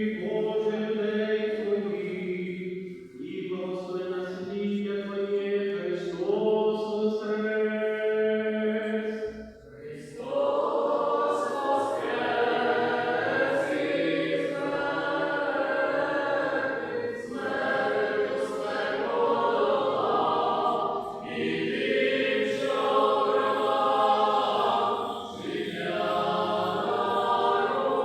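Choir singing a liturgical chant a cappella in long held phrases with short breaks between them; the singing grows fuller about ten seconds in.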